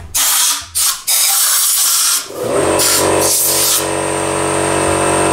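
Compressed-air blow gun hissing over an engine block's cylinder deck, clearing off aluminium particles. It fires two short blasts, then a long steady blast from about two and a half seconds in, with a whistling tone over the hiss.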